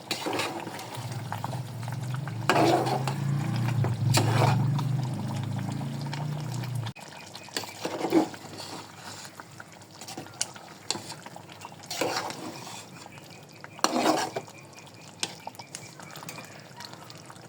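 A spoon stirring chicken curry in a pot, with several knocks of the spoon against the pot. A low steady hum under it stops abruptly about seven seconds in.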